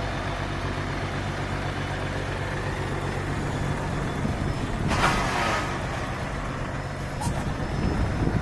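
Truck engine idling with a steady low drone, with a short hiss of air, like an air-brake release, about five seconds in.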